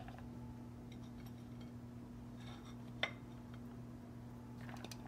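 Faint light knocks and clicks as pieces of red pepper are set into a plastic food processor bowl, with one sharper click about three seconds in, over a steady low hum.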